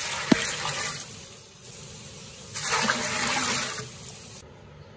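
Water poured from a jug into a pressure cooker pot of diced beef, splashing and gushing in two pours, with a brief knock about a third of a second in.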